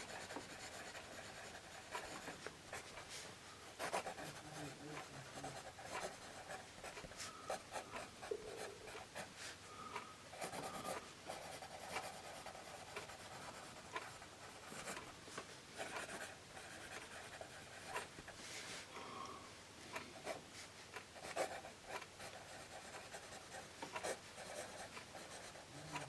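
A vintage Scripto 77 mechanical pencil's graphite lead writing on paper: faint, irregular scratching strokes with small ticks as the letters are formed.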